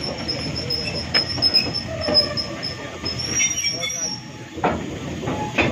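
Steam locomotive moving slowly, its wheels giving a high, broken squeal against the rails over a low running rumble, with a few sharp knocks.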